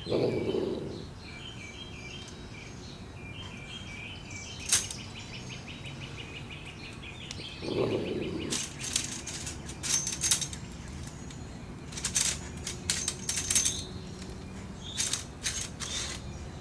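Wire-mesh live trap clinking and rattling in a string of sharp clicks through the second half as a trapped raccoon shifts inside it on dry leaves. A short low sound comes at the start and again about eight seconds in, and quick bird chirps run over the first few seconds.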